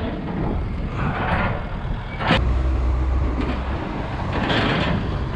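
A motor vehicle engine running, with a sharp knock a little over two seconds in, followed by about a second and a half of low rumble.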